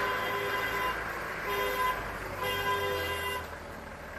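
Vehicle horns honking in street traffic: one toot at the start, then two more about one and a half and two and a half seconds in, the last lasting about a second. A low hum of vehicle engines runs underneath.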